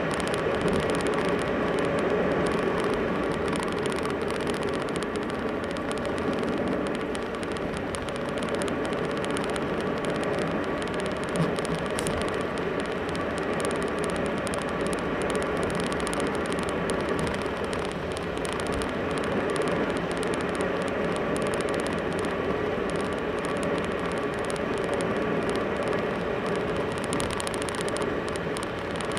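Steady engine and tyre noise inside a moving car's cabin, with one small knock about eleven seconds in.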